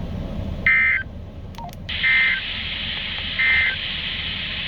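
Three short bursts of EAS SAME digital data tones from a weather radio, about 1.3 s apart: the end-of-message code closing a National Weather Service severe thunderstorm warning. A steady hiss of radio static comes up after the first burst.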